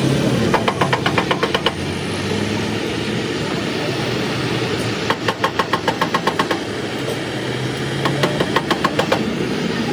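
Three short runs of rapid tapping, about eight taps a second, over a steady engine rumble.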